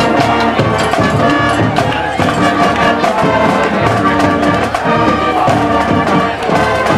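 Brass band playing, trumpets and trombones holding notes in a tune, the kind of school band that plays during a high school football game.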